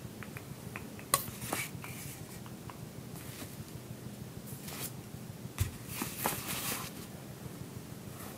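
Hands handling statue parts and the cape: a few light clicks and clinks, the sharpest a little after one second. About five and a half seconds in there is a dull knock, followed by a second of rustling clatter, all over a steady low hum.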